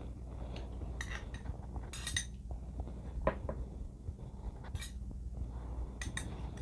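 A metal spoon clinking against a heavy black soup pot and a small ceramic bowl as soup is spooned across. There are about half a dozen light, separate clinks.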